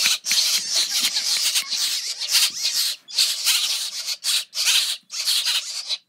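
A brood of nestling birds giving hissing, hoarse begging calls, several chicks at once in a run of bursts with short breaks: hungry chicks begging for food.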